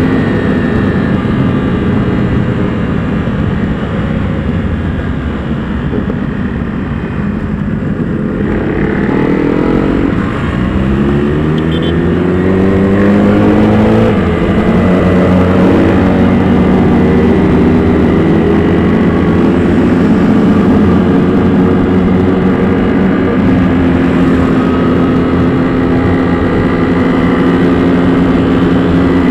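Motorcycle engine heard from on board while riding: the revs ease off in the first few seconds, then the pitch climbs hard under acceleration about ten seconds in and holds at a steady, louder higher note for the rest.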